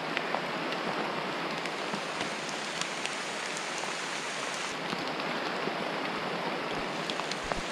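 Steady rain falling: a dense, even hiss with scattered sharp ticks of drops striking.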